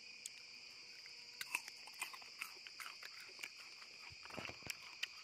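Steady high chirring of forest insects, with scattered small clicks and crunches of people chewing and a brief low thud near the end.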